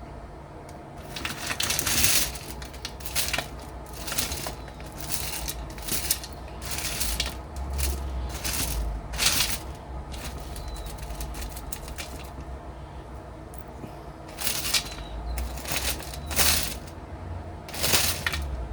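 Wet gravel and small stones of sapphire gem wash rattling and clicking in a sieve as they are shaken and picked through, in irregular spells of a fraction of a second each, over a steady low hum.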